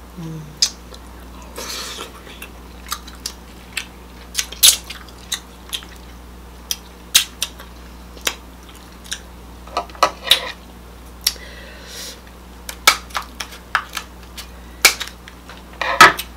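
Cooked king crab legs being cracked and picked apart by hand: sharp, irregular clicks and snaps of shell, with a few wetter rustles of meat pulled free and chewing. The loudest cluster of snaps comes near the end.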